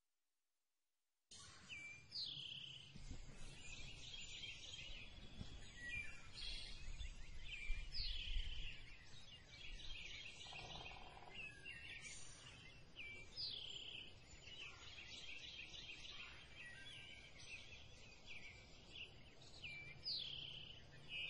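Starting about a second in, outdoor ambience with birds calling: a high, falling whistle repeated every two to three seconds over steady chirping, with a low rumble underneath.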